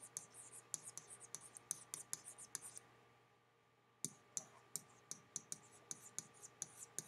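Stylus tapping and scratching on a writing tablet as words are handwritten: a quick run of faint clicks that breaks off for about a second midway, then resumes.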